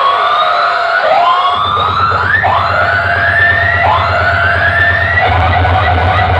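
Siren-style rising whoops blasted through large DJ sound-system speakers, repeating roughly every second and a half. A steady deep bass drone underneath drops out at first and comes back about a second and a half in.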